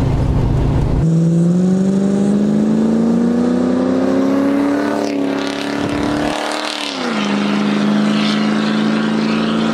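Land Rover Discovery's 3.9-litre Rover V8 with a nice-sounding exhaust, under acceleration. After a low rumble in the first second, the engine note rises steadily, drops sharply about six to seven seconds in, then holds steady.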